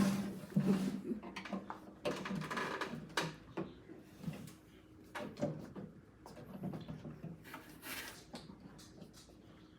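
Plastic crisper drawer and its snap-on front being handled and pried at, with scattered clicks, knocks and scrapes of plastic against plastic.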